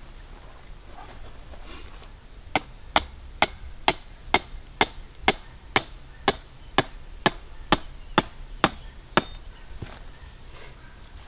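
Hand hammer blows, about fifteen sharp strikes at roughly two a second, starting about two and a half seconds in and stopping about nine seconds in.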